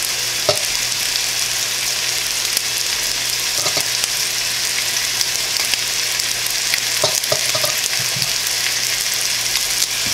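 Chicken breasts sizzling as they brown in a skillet of rendered bacon fat: a steady frying hiss. A few light clinks come from spooning artichoke hearts out of a glass jar into a mixing bowl.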